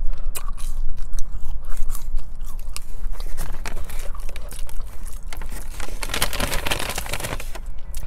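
Close-miked chewing of French fries: soft bites and wet mouth clicks, with a denser stretch of crackling about six seconds in.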